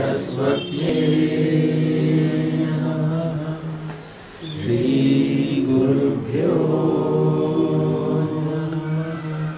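A man and a woman chanting Vedic Sanskrit together in long, held recitation notes. There is a short breath pause about four seconds in before the next phrase.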